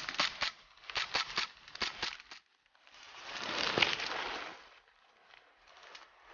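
Footsteps crunching underfoot, a quick run of light steps through the first two seconds or so, then a longer rustle of clothing and vegetation that swells and fades around the middle, with a few faint clicks after it.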